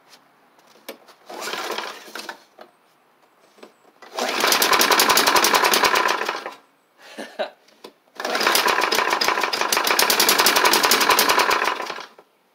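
A Snapper Hi Vac push mower's Tecumseh engine catches and runs twice, for about two and a half seconds and then about four seconds, stalling out each time. It is trying to start on a freshly swapped carburetor but won't keep running.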